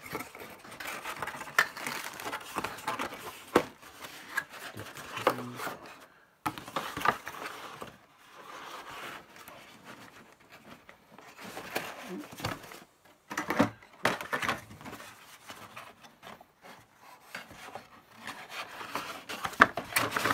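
Handling noises as items are picked out of a box: packaging and cables rustling and rubbing, with scattered clicks and knocks as things are set down.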